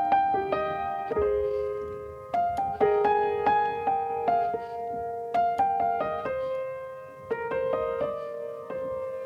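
Piano music: a melody of struck notes over held chords, each note starting sharply and ringing on.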